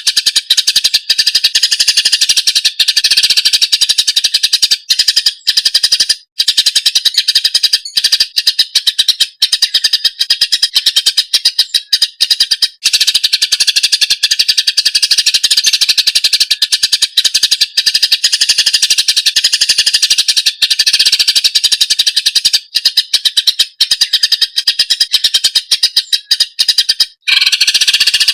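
Cucak ijo (green leafbird) singing a loud, continuous, rapid chattering song of high notes, with a short pause near the end.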